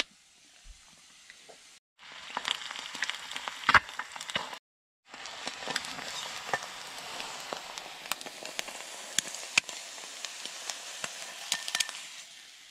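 An egg frying in a cast iron skillet: steady sizzling with scattered crackles and pops, starting about two seconds in, with a brief break a little before the five-second mark.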